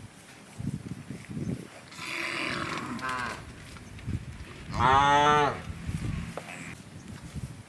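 Cows mooing: a short call about three seconds in, then a longer, louder one about five seconds in.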